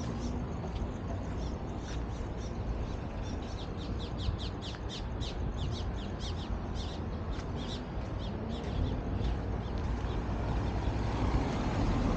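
Birds chirping outdoors in a rapid run of short, high calls, thickest in the middle stretch, over a steady low background rumble.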